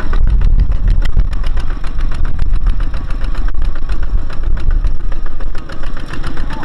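Kubota ZT155 single-cylinder diesel engine on a two-wheel walking tractor, running with a steady rapid chugging as it pulls a loaded rice trailer through mud.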